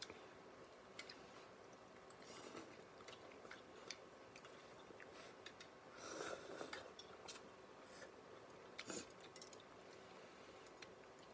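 Faint eating sounds of noodles eaten with chopsticks: quiet chewing and small clicks, with a short slurp of noodles about six seconds in.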